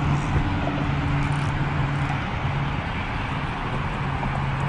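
Steady vehicle traffic noise with a low, even engine hum that drops out briefly now and then.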